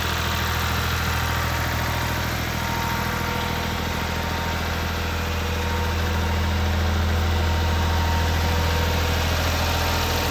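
Renault tractor's diesel engine idling steadily, with its bonnet off.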